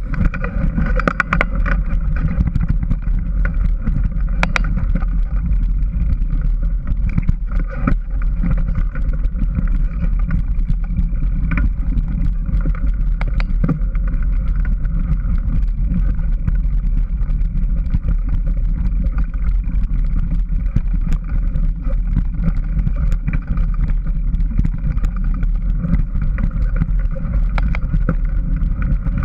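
Steady rumble of wind and movement on a camera carried at speed along a rough dirt forest trail, with scattered sharp clicks and rattles from the ride over roots and bumps.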